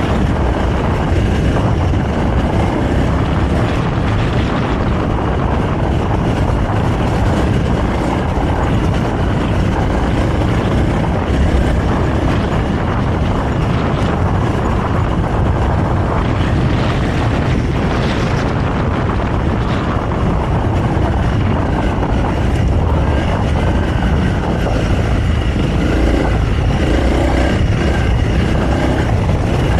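Honda CRF300L's single-cylinder four-stroke engine running on its stock exhaust as the trail bike is ridden steadily over a dirt trail, with wind buffeting the microphone.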